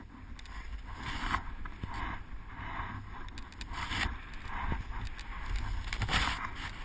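Skis carving turns through soft snow, a hiss swelling on each turn about once a second, over a low wind rumble on the microphone.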